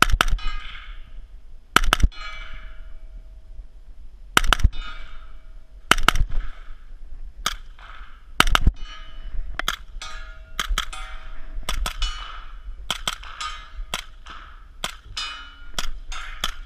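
Suppressed gunshots fired one at a time, each followed by the brief metallic ring of a steel plate target being hit. The shots come a second or two apart at first, then much faster from about ten seconds in.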